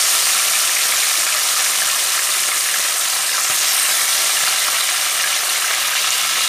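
Small boirali fish, salted and turmeric-coated, sizzling steadily in hot oil in a wok, just added for their first frying.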